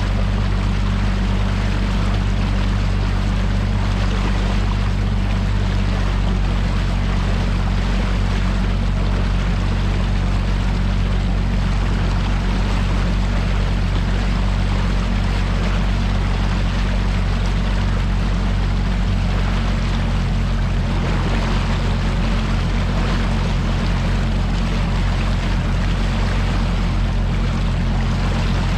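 Outboard motor of a bass boat running steadily under way, with water and wind rushing past the hull. The engine note shifts slightly about two-thirds of the way through.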